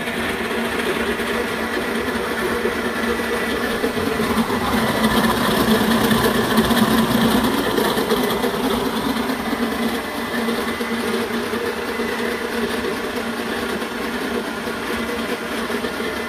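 KitchenAid tilt-head stand mixer running steadily, its whisk beating egg whites with cream of tartar in a steel bowl at the start of an Italian meringue. It gets a little louder in the middle, then settles back.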